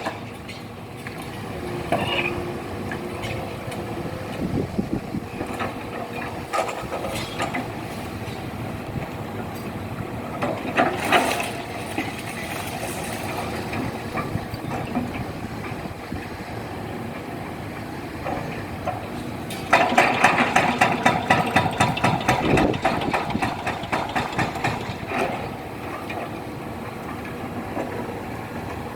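Demolition machinery running steadily. About two-thirds of the way through comes a run of rapid, regular clattering that lasts several seconds.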